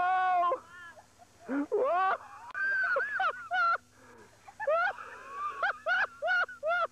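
A cat meowing over and over: a long meow at the start, then a string of shorter meows, coming quickly near the end.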